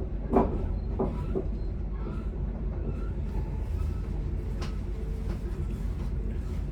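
Commuter train running, heard from inside the driver's cab: a steady low rumble, with three knocks in the first second and a half, the loudest about half a second in, and a sharp click a little past the middle.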